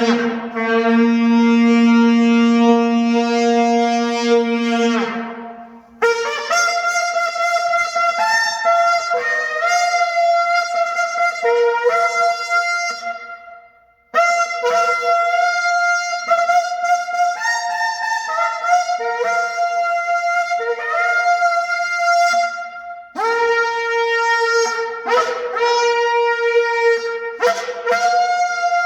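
Sable antelope horn shofar blown: one long low blast held about five seconds that sags in pitch as it dies, then three runs of quick notes jumping back and forth between a few higher pitches, with short breaks between the runs.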